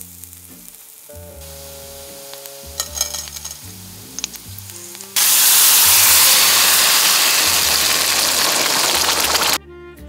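Canned tomatoes with their juice poured into a pan of hot olive oil and garlic, setting off a loud sizzle about five seconds in that lasts about four and a half seconds and cuts off suddenly. Before it, softer sizzling of garlic in the oil, under background music.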